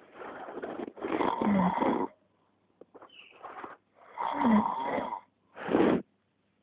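Capybara snoring: a run of five snoring breaths, louder ones of about a second alternating with softer ones.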